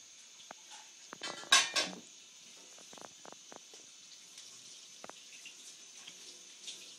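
A cat pawing at a plate of scrambled eggs, rattling the metal fork against the plate in a short clatter about a second and a half in, followed by a few faint single clicks.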